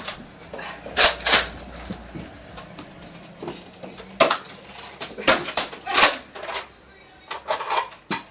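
Nerf blasters being primed and fired: a series of sharp plastic clacks and pops at irregular intervals, with loud pairs about a second in and again from about four to six and a half seconds.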